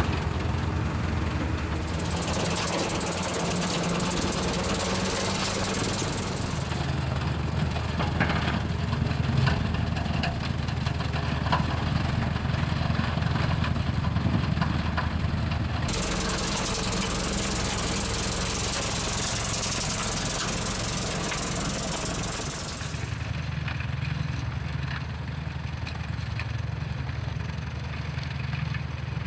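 Tractor's diesel engine running steadily under load, driving a Shelbourne Reynolds Powerspread Pro manure spreader while it spreads manure. A rushing hiss comes in about two seconds in and drops out near six seconds. It returns around sixteen seconds and stops a little after twenty-two seconds.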